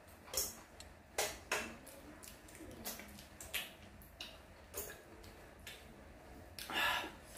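Close-up eating sounds from a person sucking and picking meat off boiled suckermouth catfish by hand: irregular wet lip smacks and sucks, with one longer slurp near the end.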